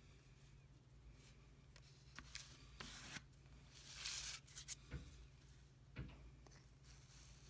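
Faint handling noises from epoxy gluing: a toothpick scraping glue inside a wooden brush handle, and fingers rustling over a paper towel and a plastic sheet. The rustling is densest about four seconds in, and two soft knocks come about five and six seconds in, over a low steady hum.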